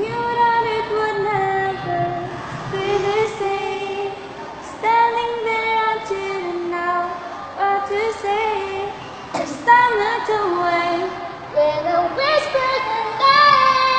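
Teenage girl singing a song in long, held notes that glide between pitches, over faint backing music.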